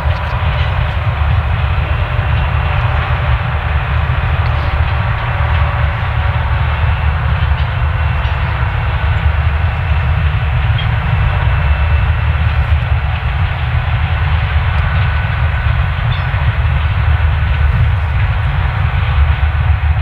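A freight train of hopper wagons rolling past, making a steady low rumble on the rails, with a few faint steady tones above it.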